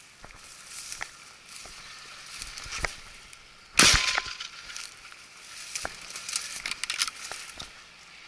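A single shotgun shot about four seconds in, from an SKB 505 over-and-under shotgun loaded with 32 g No. 9 birdshot, fired at a thrush. Around it, light crunching and clicks of footsteps on rough ground.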